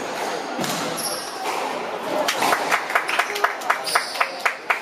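Voices and court noise, then from about two seconds in a steady, even run of sharp hand claps, about four a second, as the point ends on a squash court.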